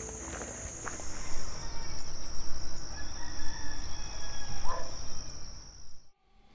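Night insects trilling at one steady high pitch, with a rooster crowing partway through. The sound cuts off abruptly near the end.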